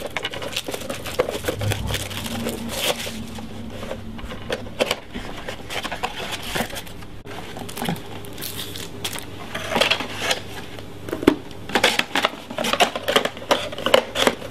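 Hands opening a cardboard trading-card box and handling its contents on a wooden tabletop: cardboard flaps, a plastic-wrapped card and a stack of cards rustling, tapping and sliding. The small clicks and rustles are irregular and get busier in the last few seconds.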